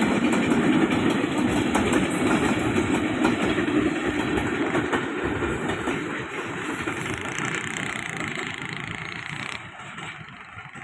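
A long train rolling past on the rails, its wheels clattering with scattered clicks. The sound fades steadily and drops off sharply near the end.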